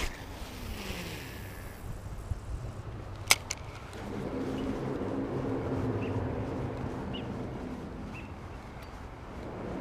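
Spinning reel's bail snapping shut with one sharp click about three seconds in, then the reel whirring steadily as line is cranked in on a lure retrieve, easing off briefly near the end.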